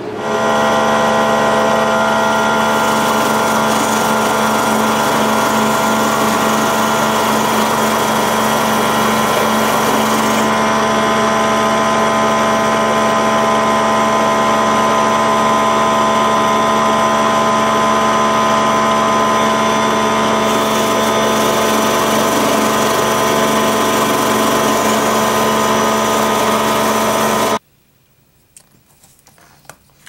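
Electric power tool motor running at steady speed with a constant whine, spinning a small bolt against cloth to polish the rust off. It cuts off suddenly near the end.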